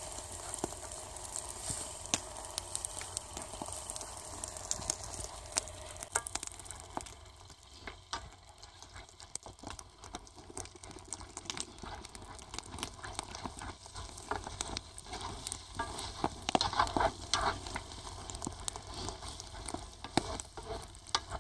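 Sizzling and crackling of food cooking over a camp fire, with many scattered sharp clicks. The sound thins about six seconds in, and a few louder bursts come near the end.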